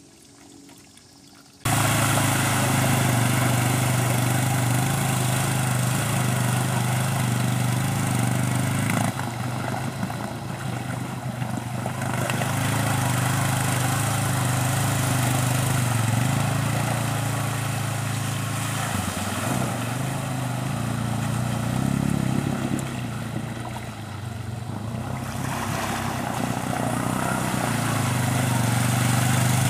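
Suzuki LT-Z250 ATV's single-cylinder four-stroke engine running steadily, starting abruptly about two seconds in after near quiet, with slight dips in level around ten and twenty-four seconds in.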